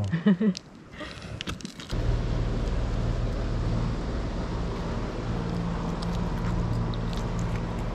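A steady low engine hum starts suddenly about two seconds in and holds at an even level over outdoor noise.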